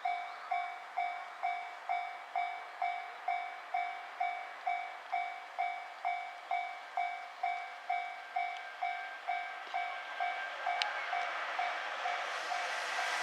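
Japanese level crossing warning bell ringing in an even ding-ding rhythm, about two rings a second. Over the last few seconds the noise of the approaching freight train rises and begins to cover the bell.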